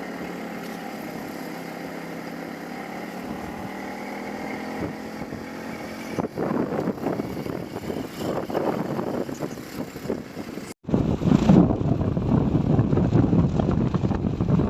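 Motorcycle engine running at a steady, even pitch while riding, joined by rough rumbling noise from about six seconds in. About eleven seconds in the sound cuts off abruptly and is replaced by heavy wind buffeting on the microphone.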